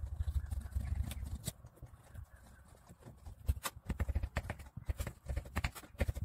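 Small kitchen knife cutting a zucchini on a wooden cutting board: a run of irregular taps and clicks as the blade meets the board, with soft thuds in the first second or so.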